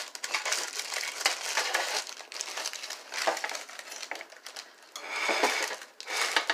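Crinkly sheet liner under freshly baked cookies rustling and crackling as the cookies are moved about on it, in short irregular crackles.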